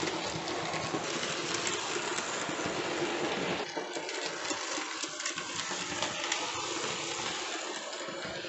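Hornby OO-gauge model of a streamlined LMS Princess Coronation class locomotive running on the layout's track, its motor and wheels making a steady rattling run with fine clicks. The sound is fuller for the first three and a half seconds and then thins out.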